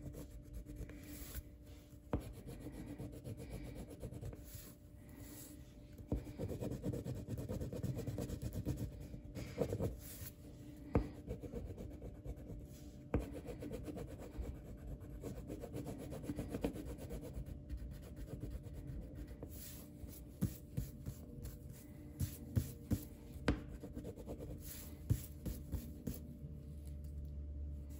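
Hand coloring on paper: a soft, rubbing scratch of repeated strokes, with scattered sharp light clicks, several in quick succession in the second half.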